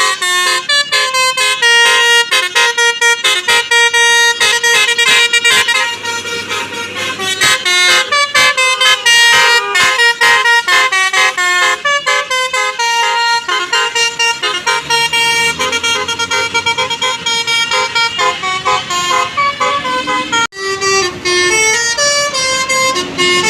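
Bus musical horn of the 'telolet basuri' kind playing fast melodic tunes: a quick run of short pitched toots stepping from note to note. The sound breaks off abruptly about 20 seconds in, then another burst of horn notes follows.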